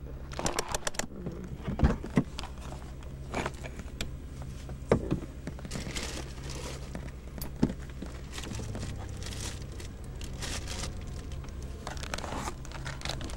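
Camcorder handling noise: irregular rustling, scraping and sharp clicks close to the microphone, over a steady low hum.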